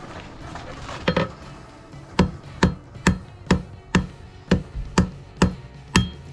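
Hand hammer blows on hot mild steel over an anvil, drawing out the end of a forge-welded rod bundle: a single blow about a second in, then a steady run of strikes about two a second, some with a short metallic ring.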